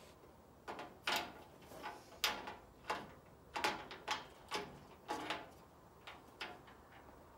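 Locking cotter pin being pushed through the hoop on a Haul Master aluminum cargo carrier's gate and locked, with the gate rattling: a run of about a dozen irregular metal clicks and clanks, each with a short ring.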